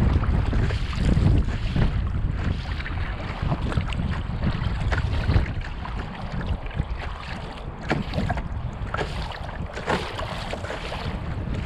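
Wind buffeting the microphone in a heavy, uneven rumble, with short splashes of water from kayak paddle strokes scattered through it.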